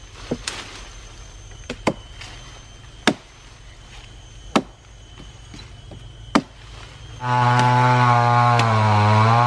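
Steel axe chopping into a felled agarwood trunk: about seven sharp blows, unevenly spaced. Seven seconds in a chainsaw engine starts up loud and steady, its pitch dipping briefly and recovering near the end.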